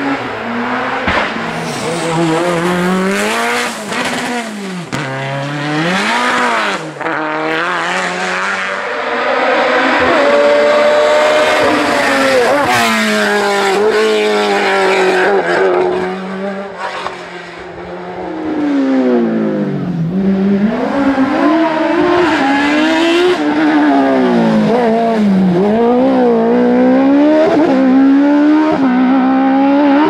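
Racing car engine revving hard up a hill-climb course, its pitch repeatedly rising and dropping with gear changes and lifting for bends. It grows louder as the car approaches.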